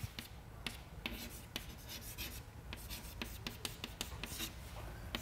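Chalk writing on a chalkboard: a string of irregular short taps and scratchy strokes.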